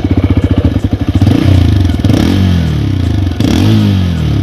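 TVS Raider 125's single-cylinder air-cooled engine running at idle and revved a couple of times, each blip rising and falling back, heard at the exhaust.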